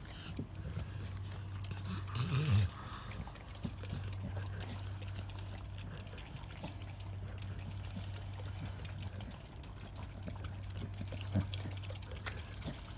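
Dog licking a newborn puppy: wet lapping and smacking sounds over a steady low hum, with one brief louder sound about two seconds in.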